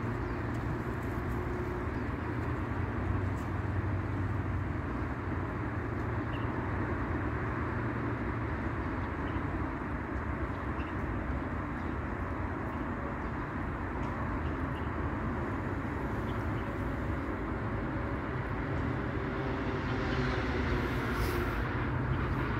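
Steady outdoor background rumble of distant traffic, with a brief higher hiss a little before the end.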